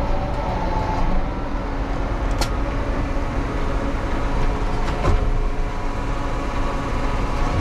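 Tractor engine running steadily, with two short knocks about two and a half and five seconds in.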